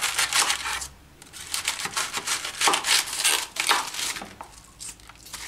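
Kitchen knife cutting through a raw green cabbage on a wooden cutting board: a quick run of crisp, crunchy cuts, with a short pause about a second in, dying down about a second before the end.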